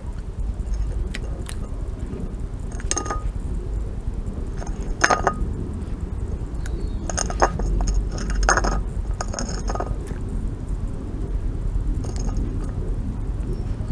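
A red fox cub eating from a ceramic plate: its teeth and muzzle knock and clink against the dish about half a dozen times, each with a short ring. A steady low rumble runs underneath.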